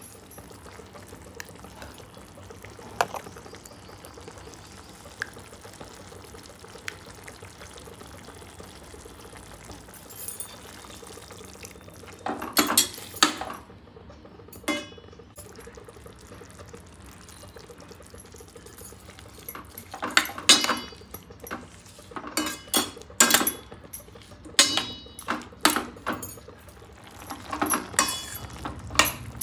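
Cooking sounds from a pan of pumpkin curry: liquid being poured and stirred, with clusters of short clattering scrapes of a utensil against the pan near the middle and repeatedly through the last third.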